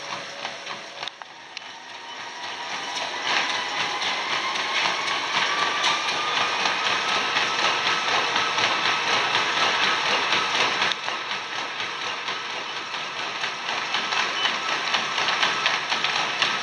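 Gym treadmill running with a person jogging on it: rapid, even footfalls on the moving belt, and a motor whine that rises in pitch as the belt speeds up in the first few seconds.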